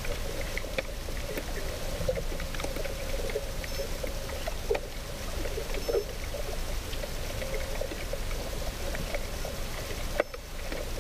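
Underwater camera audio: steady water noise with a hum and many scattered small clicks and ticks. A sharp click and a brief dropout come near the end.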